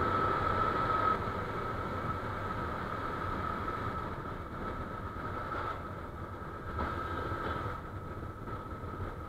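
Riding noise of a Yamaha FZ-S V2.0 motorcycle at about 70 km/h: steady engine and wind rush, easing slightly as the bike slows. A thin high whistle fades out about a second in.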